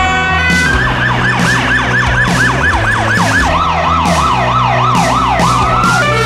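Emergency-vehicle siren in a fast yelp, sweeping up and down about four times a second, dropping to a lower yelp about halfway through, over background music.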